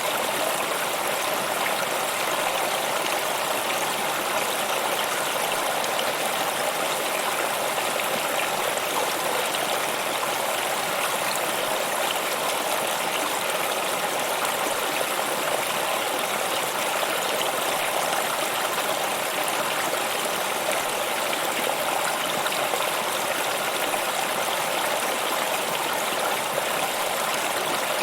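Stream water flowing with a steady, even rush and no pauses or changes.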